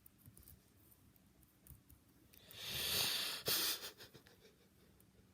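A loud breathy hiss lasting about a second and a half, with a brief break near its end.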